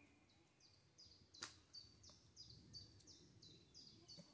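A faint bird calling, repeating one short high note about three times a second. A single sharp click comes about a second and a half in.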